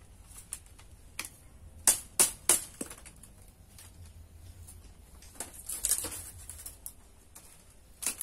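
Split bamboo strips clicking and rustling as they are woven by hand: a quick run of sharp clacks about two seconds in, a stretch of scraping rustle around six seconds, and one more click near the end.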